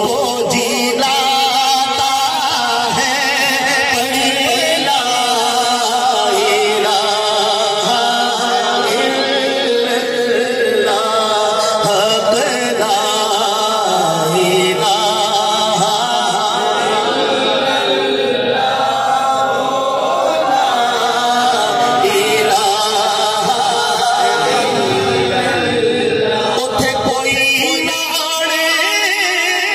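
A man reciting in a melodic, chanting style into a microphone, with long wavering held notes.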